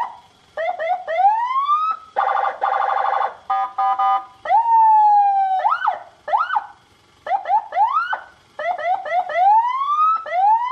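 Senken CJB100BD electronic siren sounding through a Senken YD100i speaker and cycling through its tones. Quick rising whoops come first, then a harsh buzzing horn tone, a choppy pulsing tone, a long tone sliding down, two sharp yelps, and more rising whoops.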